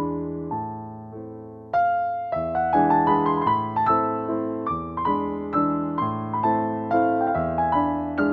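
Background keyboard music, a gentle tune of struck notes that each fade away, growing louder a little under two seconds in.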